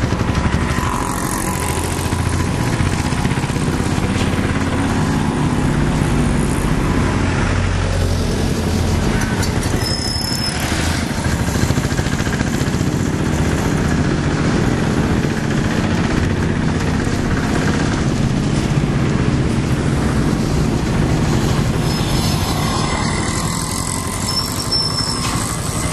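Motorcycle and car engines running in busy road traffic close by, a steady, loud mix. A brief high-pitched squeak cuts through about ten seconds in and again near the end.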